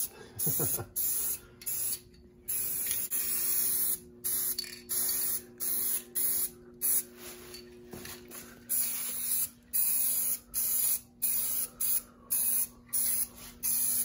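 Aerosol spray-paint can spraying in a quick run of short bursts, roughly a dozen, each a hiss lasting under a second to about a second, as a steel trailer axle and its welded spring bracket are coated with enamel against rust.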